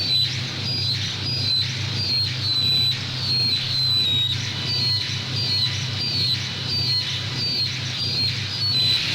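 Japanese noise music: high, bird-like electronic chirps repeat about twice a second, stepping slightly in pitch, over a steady low hum.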